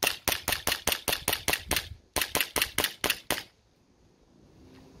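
G&G GTP9 gas blowback airsoft pistol fired rapidly, about five shots a second: a string of about ten sharp shots, a brief pause, then about seven more, stopping about three and a half seconds in.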